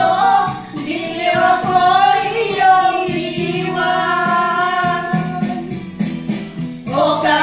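A small group, women and a boy, singing along to a pop song's backing track with tambourine, holding long notes.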